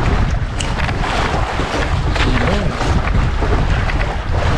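Wind buffeting the microphone over the steady rushing noise of a boat at sea.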